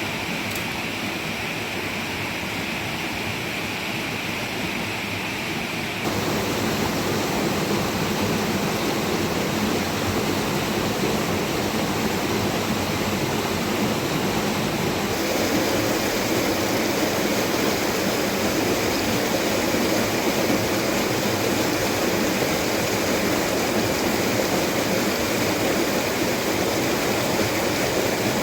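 Steady rushing water, an even wash of noise. It steps up in level about six seconds in and changes character again about halfway through.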